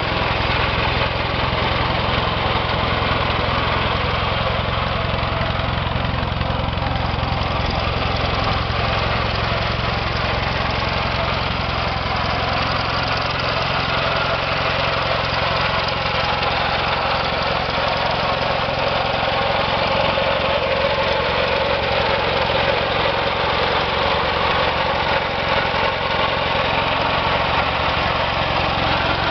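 1938 Viking Standard Twin garden tractor's twin-cylinder engine running steadily at a raised throttle, pulling the cart along in low range.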